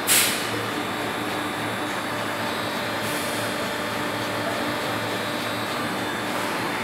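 Hydraulic power unit of a plastic bottle-cap moulding machine running steadily: the electric motor and hydraulic pump hum. A short loud hiss comes just after the start, with a fainter one about three seconds in.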